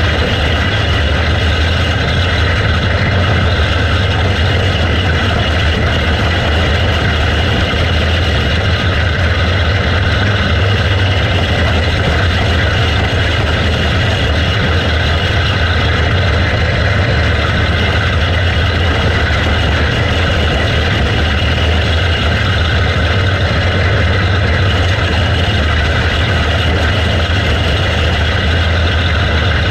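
Box stock outlaw kart engine running steadily, heard on board, with other karts' engines around it.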